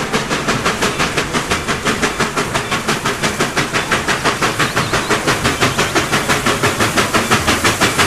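Reading & Northern 2102, a 4-8-4 steam locomotive, pulling a train of hopper cars with a rapid, even chuffing of exhaust beats, about five or six a second, mixed with hissing steam.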